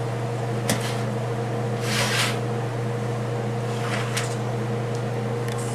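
A steady low kitchen-appliance hum, with a few light clicks and a short scraping rustle about two seconds in, as a foil pizza pan is slid and lifted off a wire oven rack.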